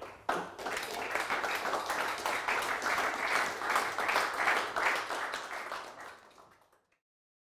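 Small audience applauding: many hands clapping in a dense patter, which fades out about six seconds in.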